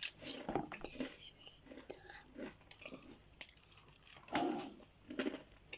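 Faint crunching and chewing of a freshly baked cookie, with scattered small clicks.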